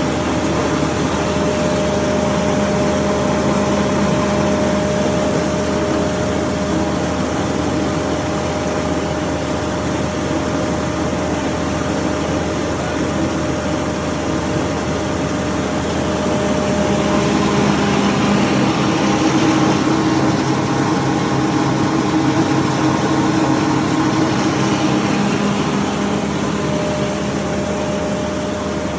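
Wood chipper's engine running steadily. From about seventeen to twenty-six seconds in it grows louder and its pitch changes, then it settles back to its earlier steady note.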